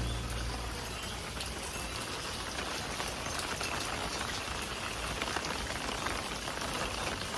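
Heavy rain falling steadily: an even hiss of rain on surfaces.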